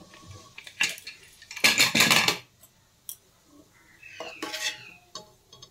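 Steel spoon clinking and scraping against the inside of a pressure cooker while scooping up boiled chickpeas. There is a louder metallic clatter about two seconds in and a few light taps near the end.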